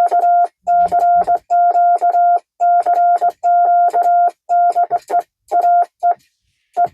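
Morse code sent on a 1922 Vibroplex Martin Junior semi-automatic key (bug), heard as the radio's steady beeping sidetone keyed on and off in dots and dashes, with the key's contacts clicking along. The dots come in quick, even strings from the bug's vibrating pendulum, which is fitted with an extension to slow them. The sending pauses briefly near the end.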